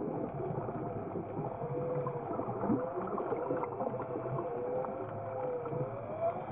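Underwater recording of an ROV's electric thrusters whining, the pitch gliding slowly up and down as the motor speed changes, over a steady hiss of water noise.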